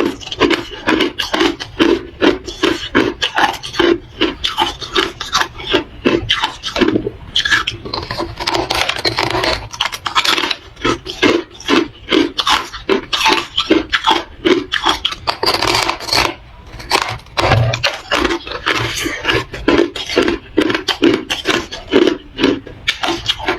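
Close-miked chewing of hard ice: a steady run of loud, crisp crunches, a few a second, as the ice is bitten and ground between the teeth.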